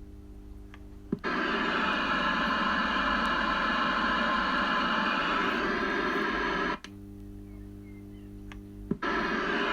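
CB radio receiving a keyed-up carrier: about a second in the squelch opens with a pop and a loud rush of hissing static fills the speaker for about five and a half seconds. It then cuts off abruptly to a low hum, and near the end it pops open into static again.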